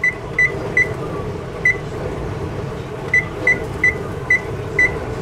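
Electric range's oven control panel beeping once for each press of the temperature key, about ten short high beeps in quick runs with a pause in the middle, as the oven setting is stepped up for preheating. A steady low hum runs underneath.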